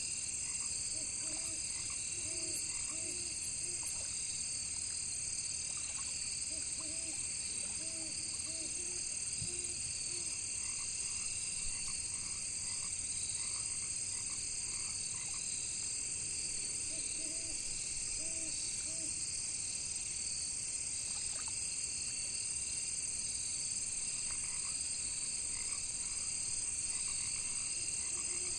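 Frogs croaking in short runs of several calls every few seconds, over a steady, high-pitched chorus of crickets and other insects.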